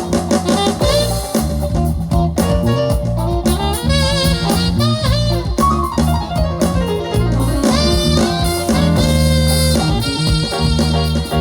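Music with a heavy, sustained bass line under a wavering lead melody and instruments.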